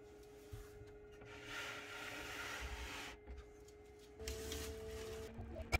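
Faint steady hum of a running mini egg incubator, with a rubbing, rustling noise in the middle. About four seconds in the hum shifts in pitch, and a sharp click comes near the end.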